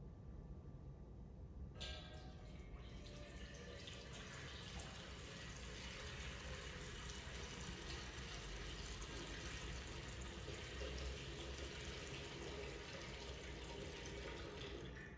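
Water being poured into a baptismal font, a steady splashing pour that begins suddenly about two seconds in and stops near the end.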